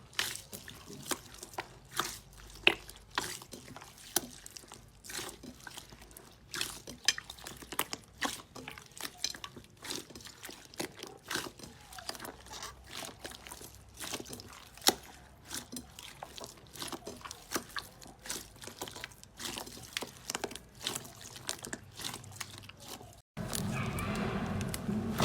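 Slime squeezed and poked by hand: irregular wet clicks and small pops, a few sharper than the rest. Near the end it cuts off suddenly and a steadier, louder sound takes over.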